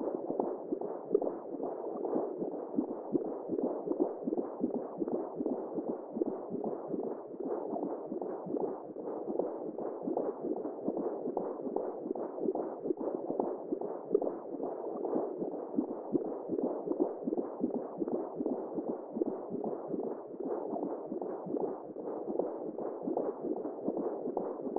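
Womb sound for soothing a baby: a dull, steady whooshing noise with a quick, even pulsing, like blood flow and heartbeat heard from inside the womb.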